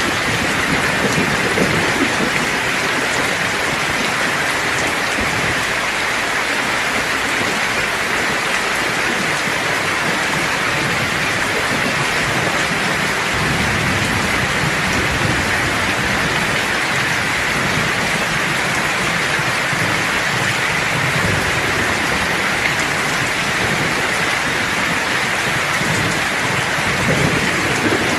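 Steady heavy rain falling in an even hiss, with low thunder rumbles swelling and fading underneath at several points.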